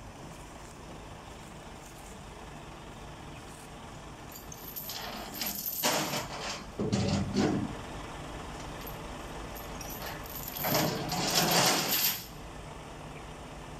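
Two loud bursts of air hissing, like heavy-vehicle air brakes venting, the first about five seconds in and the second, longer one about eleven seconds in, over a steady low engine idle.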